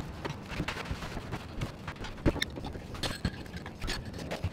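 Steel C-clamps being handled and tightened on a laminated wooden beam: irregular metal clicks, knocks and scrapes against the wood, with a sharper knock about two seconds in.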